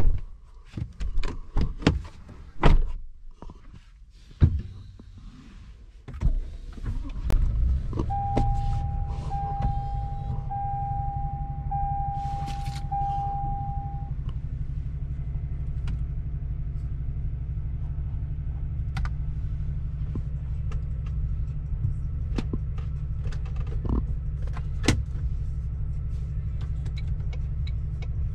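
Toyota Tundra pickup started from inside the cab: a run of clicks and knocks, then about six seconds in the engine starts and settles into a steady low idle. A chime beeps five times in a row at one pitch, and a few light clicks follow.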